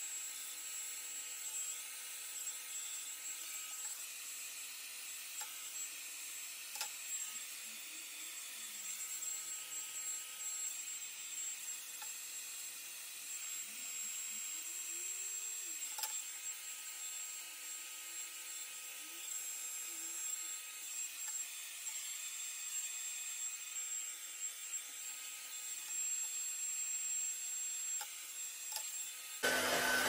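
Handheld hair dryer running steadily with a high motor whine, blowing on long hair. It turns suddenly louder and rougher just before the end.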